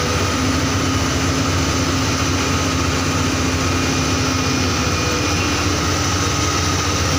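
Rotary bored-pile drilling rig running: its engine hums steadily, with a loud, even hiss on top.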